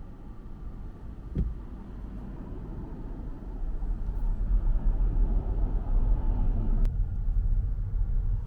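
Car driving on the road: a steady low rumble of engine and tyres that grows louder about four seconds in, with a single click about a second and a half in.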